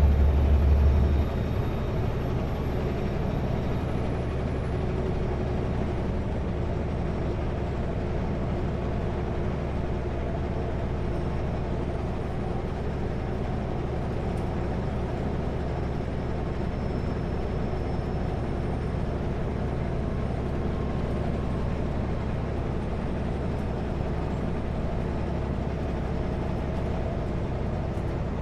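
Kenworth W900L semi truck running steadily at highway speed, a low engine drone under an even rush of road noise, heard from the cab. The low drone drops sharply in loudness about a second in, then stays even.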